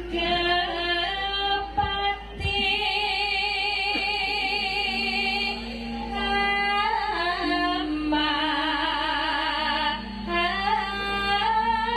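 A female Javanese sinden singing long held notes with wide vibrato, sliding between pitches, over steady sustained instrumental notes.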